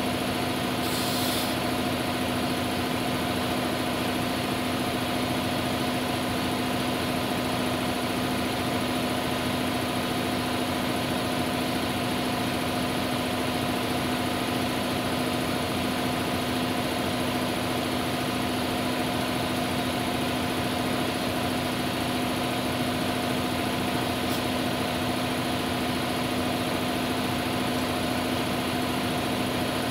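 Steady hiss of compressed air with a constant machine hum under it, as a tire is inflated on a Coats tire changer. A short sharper hiss about a second in.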